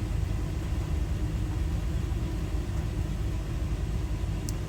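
A steady low rumble, with one faint small click near the end.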